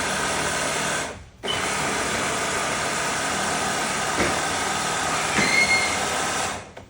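A small motor running with a steady whir, broken by a brief sudden gap a little over a second in.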